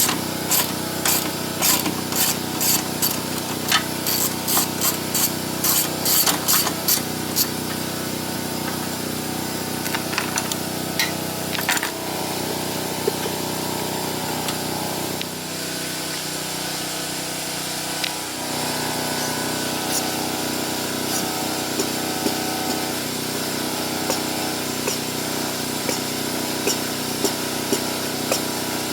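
Wrench work on the ATV: quick, evenly repeated clicks, about three a second, for the first seven seconds or so. A steady machine drone runs underneath throughout.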